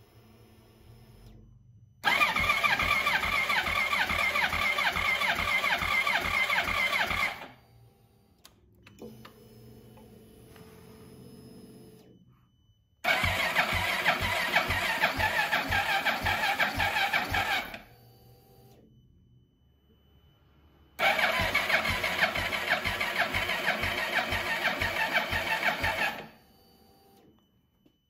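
Yamaha R1 crossplane inline-four turned over by its electric starter with the spark plugs out and a compression gauge fitted, so the engine cranks without firing. It cranks in three bursts of about five seconds each, with a steady beat of compression strokes, on a battery that is getting weak.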